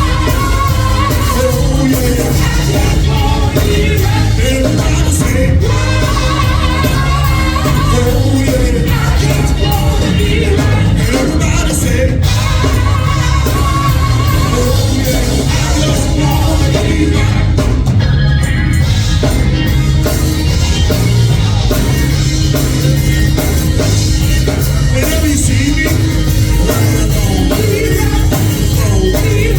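Live gospel song in church: voices singing over a full band with a steady low beat.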